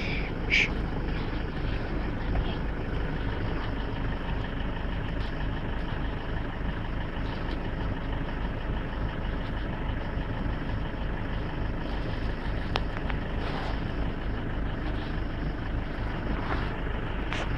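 Vehicle engine idling steadily, a low even rumble.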